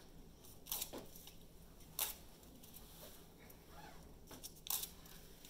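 Low room tone broken by three scattered sharp clicks and knocks, about a second in, two seconds in and near the end, from students at their Chromebooks, closing them as they finish.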